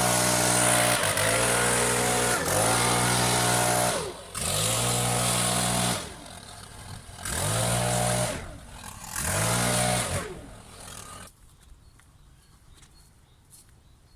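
Wood chipper's petrol engine running, its pitch dipping and recovering several times as if briefly loaded, with short drops in level, before it stops about eleven seconds in.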